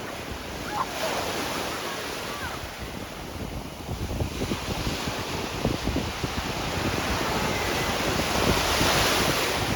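Surf washing onto the beach, with wind buffeting the microphone in gusts from about four seconds in; the wash swells toward the end.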